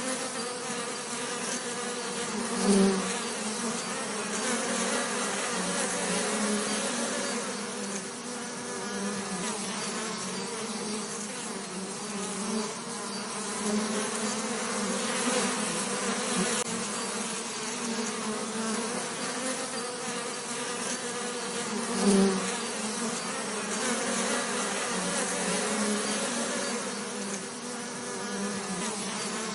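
Bees buzzing in a continuous low drone. It swells briefly louder twice, about three seconds in and again about twenty-two seconds in.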